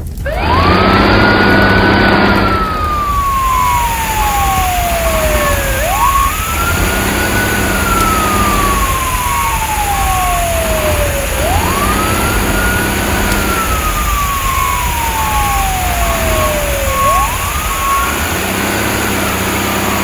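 Fire engine siren wailing, each wail rising quickly and then sliding slowly down, four times about five and a half seconds apart, over a steady hiss and a low engine rumble.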